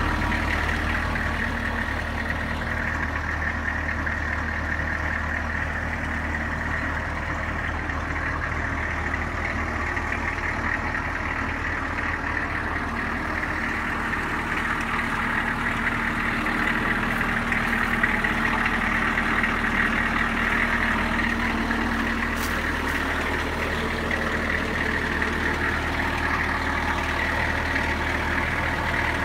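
1989 M998 Humvee's 6.2-litre V8 diesel engine idling steadily.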